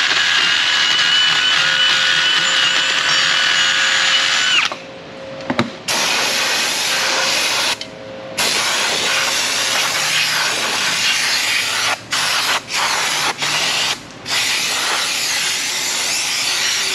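Cordless drill spinning a hub-cleaning attachment against a rusty rear wheel hub face for about four and a half seconds, then stopping; it is cleaning the rotor mounting surface. After that an aerosol brake cleaner hisses in several bursts, with short breaks between them.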